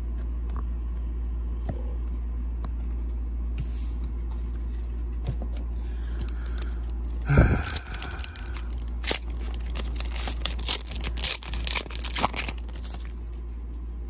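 A Pokémon booster pack's foil wrapper being torn open: a sharp rip about halfway through, then a few seconds of crinkling and crackling foil. A steady low hum runs underneath.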